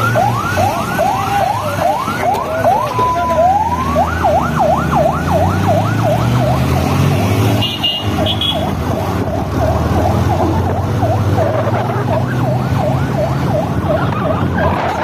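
Emergency vehicle siren in a rapid rising-and-falling yelp, about two sweeps a second, broken by a short steady tone about three seconds in. It then quickens into faster, shallower sweeps from about seven seconds on. A vehicle engine runs underneath.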